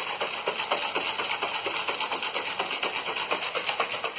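A plastic shaker bottle of whey protein and water shaken hard by hand, the liquid sloshing and knocking inside in fast, even strokes, several a second.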